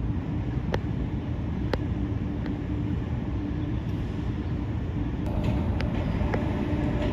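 Steady street traffic rumble with a low engine hum and a few faint sharp clicks.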